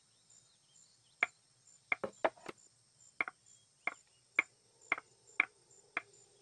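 Hard-soled footsteps on a wooden floor, a dozen sharp steps settling into a walking pace of about two a second. Faint cricket chirping runs underneath.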